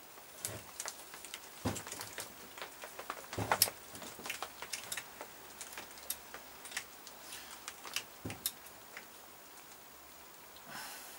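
Scattered small clicks and light knocks of metal parts being handled, with a louder cluster of knocks about three and a half seconds in: the cylinder and small parts of a Kawasaki KX250's KIPS exhaust-valve mechanism being taken apart by hand.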